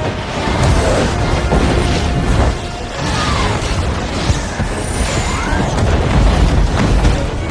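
Movie sound mix of a volcanic bombardment: a heavy low rumble and booms of flaming rocks striking the ground, under a music score. Short whistling glides come about three and five seconds in.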